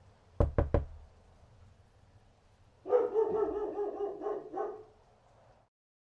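Three quick knocks, then a dog barking in a pulsing run of about two seconds.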